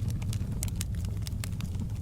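Fireplace fire burning: a steady low rumble with irregular sharp crackles and pops of burning wood.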